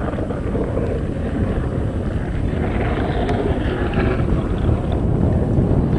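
Wind buffeting the microphone, with the hiss of an iceboat's runners on the ice that swells between about two and a half and four and a half seconds in as the boat passes close by.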